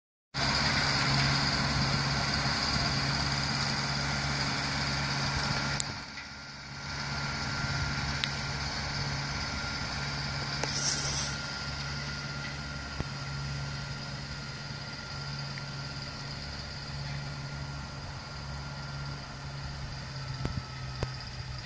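Deutz Serie 5 5100 P tractor's diesel engine running steadily under load while pulling a cultivator through the soil. A short hiss about halfway through.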